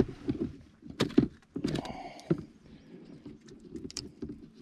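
Scattered knocks, taps and clicks of fish and tackle being handled in a fishing boat, with a cluster of sharper knocks about a second in.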